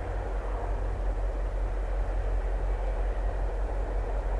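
Two VIA Rail F40PH-type diesel locomotives with EMD 16-cylinder 645 engines pull a passenger train, making a steady low engine rumble as the train draws nearer.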